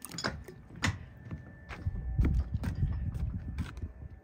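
Irregular light knocks and taps over a low rumble.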